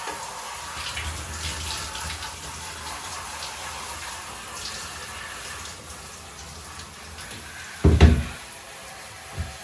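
Shower running, its water spraying over a tumble dryer's condenser unit to flush out the lint. A loud thump comes about eight seconds in, with a lighter knock just before the end.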